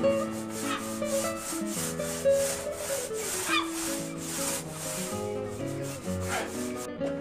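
A paint roller rubbing paint onto a wooden bulkhead, a rhythmic swishing about twice a second that cuts off abruptly near the end. Background music plays throughout.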